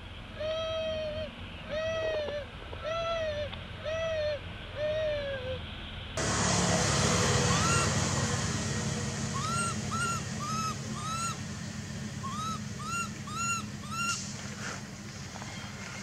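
Baby long-tailed macaque crying in a string of arched whimpering calls. At first they come about one a second. After a sudden change of background hiss, they turn higher and shorter and come in quick runs of two or three a second.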